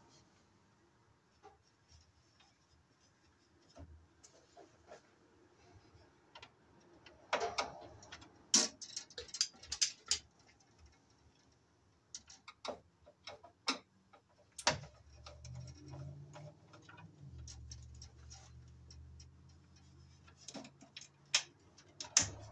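Irregular light clicks and taps of a bare copper ground wire and hand tools against a steel breaker panel as the wire is bent and fed into the bus bar. A low steady hum comes in about two-thirds of the way through.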